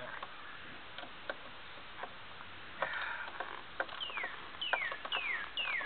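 A chicken peeping: short high calls that each fall in pitch, several in a row in the second half, about one every half second. Scattered light clicks and taps sound throughout.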